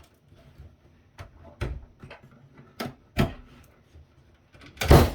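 Irregular sharp clicks and knocks of metal parts and tools being handled on an opened steel electronics chassis, the loudest near the end.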